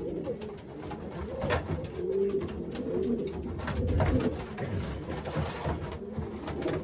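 Racing pigeons cooing in a loft, several low wavering coos overlapping, with scattered clicks and knocks of birds moving about.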